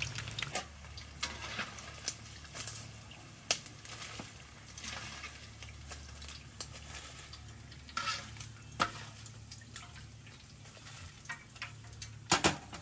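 Chicken feet deep-frying in a wok of hot oil, bubbling and sizzling, with several sharp clinks of a wire-mesh strainer against the metal wok as the pieces are scooped out, the loudest cluster near the end.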